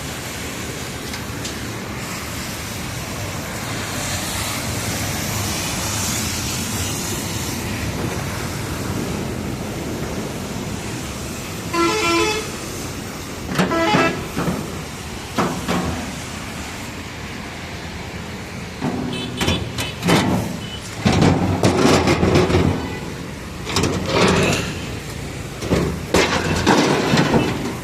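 Vehicle traffic with a horn giving several short, warbling toots in the middle. Several loud bursts of noise follow in the second half.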